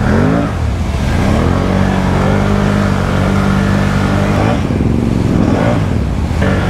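Can-Am ATV engine revving hard under load as it churns through a mud hole, with mud and water spraying off the tyres. The revs climb at the start, hold steady, then sag and waver about five seconds in before picking up again near the end.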